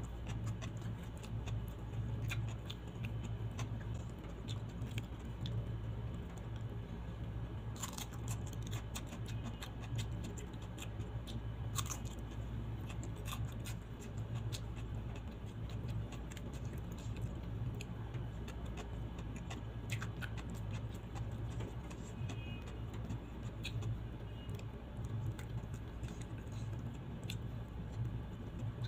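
Close-miked eating by hand: chewing and small wet mouth clicks, with light taps and rustles as fingers pick rice and fish off the plate. Two sharper snaps come about a third and halfway through, over a steady low hum.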